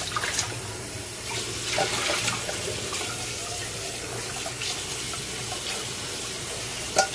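Kitchen faucet running into a stainless steel sink as a cooking pot is rinsed out, the rinse water splashing and pouring from the pot onto the dishes below. A single knock sounds near the end.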